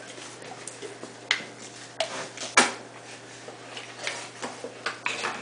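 A few short, sharp clicks and knocks, scattered irregularly, the strongest about two and a half seconds in, over a faint steady hum.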